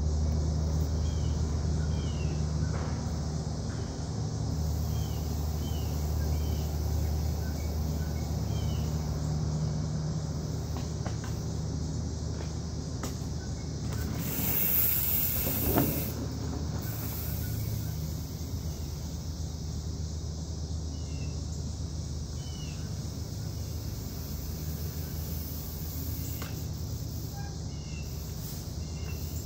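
Steady rushing of a small waterfall, swelling into a louder hiss for a couple of seconds about halfway through. Short falling bird chirps repeat over it every second or two.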